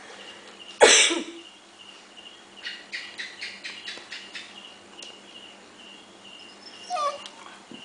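A dog playing in a heap of cloths on a tiled floor: a short, loud, breathy burst about a second in, then a run of quick faint scuffs, and a brief high squeak near the end.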